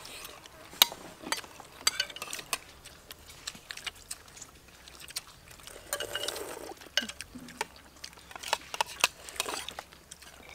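Metal spoons clinking and scraping against china plates and a pot as several people eat, in short, irregular clicks.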